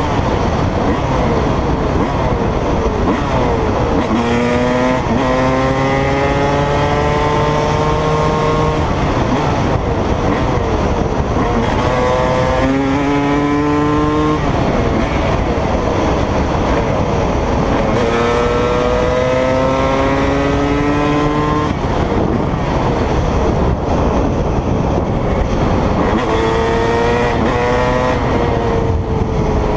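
Dirt bike engine heard from the rider's seat, revving up through the gears: its pitch climbs and drops back at each shift, several times over, with a steady rush of wind noise underneath.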